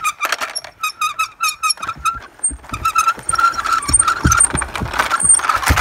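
Plastic toy car's wheels squeaking in quick, evenly repeated chirps as it is pushed along carpet, with low knocks and bumps of the toy being handled from about two seconds in.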